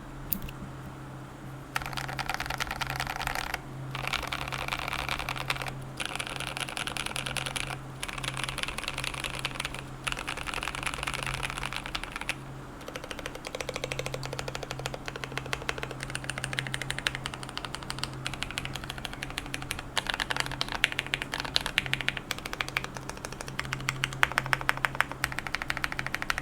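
Fast typing on a GMMK Pro mechanical keyboard fitted with Durock Burgundy linear switches, a polycarbonate plate and PBT keycaps: dense runs of keystrokes about two seconds long with short pauses between them.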